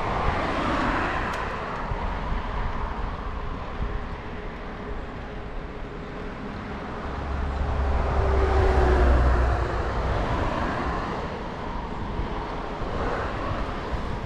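Ride noise from a bicycle-mounted action camera: wind rumbling on the microphone over the hiss of tyres rolling on an asphalt cycle path. The wind rumble swells for a couple of seconds just past the middle.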